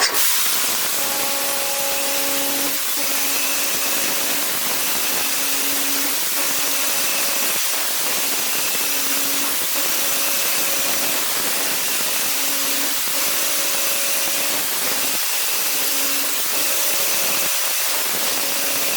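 CNC machining center face milling: the cutter runs through metal with a steady hiss, and a tone sounds and drops out in a repeating cycle about every one and a half to two seconds.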